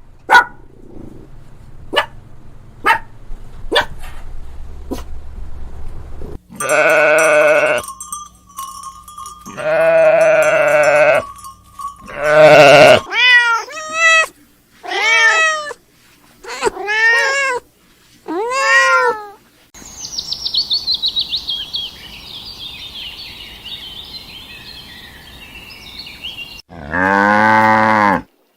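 Farm animals calling one after another. A few sharp clicks come first, then two long pitched calls, a run of about six short calls that rise and fall, a stretch of high chirping, and one low drawn-out call near the end.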